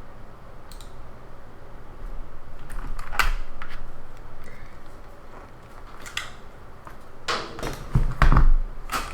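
Irregular, scattered clicks and taps of a computer keyboard and mouse being worked, a few seconds apart, over a steady low hum. About eight seconds in there is a heavier thump, the loudest sound.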